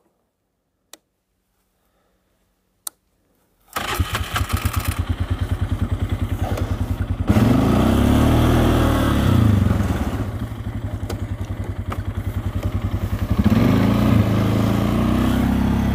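Two sharp clicks in near silence, then about four seconds in a Polaris Sportsman ATV engine starts and runs with a fast, even pulse, revving up and easing off twice.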